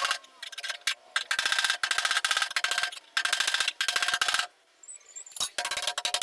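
Rapid-fire hammering on the sheet-steel panel of a truck cab during dent repair. The blows come in quick succession in short bursts of under a second, with the panel ringing under them, and there is a brief pause near the end.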